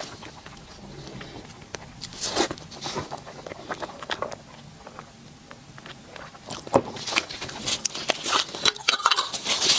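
Close-miked eating sounds of a dessert: sharp bite and chewing clicks, sparse in the middle and coming thick and fast from about two-thirds of the way in.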